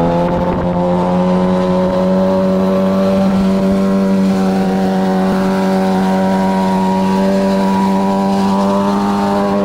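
Engine running at steady high revs, a continuous drone that holds one pitch throughout.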